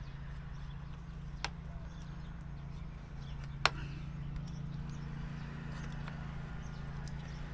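Two sharp clicks, about two seconds apart with the second louder, as the flashing is worked loose, over a steady low hum.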